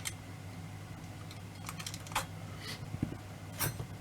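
Scattered light clicks and taps of small metal parts being handled and fitted on a Kaiser torsion clock during reassembly, most of them in the second half, over a faint steady hum.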